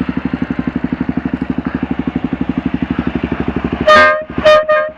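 Kawasaki KLR 650's single-cylinder engine idling with an even beat, then, in the last second or so, three short blasts of dual air horns.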